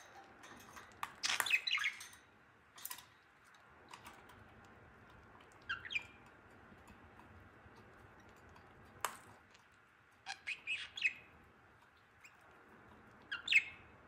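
Budgerigar giving short high chirps in several brief clusters, the loudest about a second in and again near the end, with a few sharp clicks in between.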